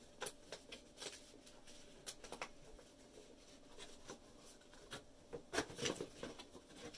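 Faint handling of a cardboard takeout-style gift box: scattered soft taps, scrapes and rustles as its flaps are folded up, a little busier near the end.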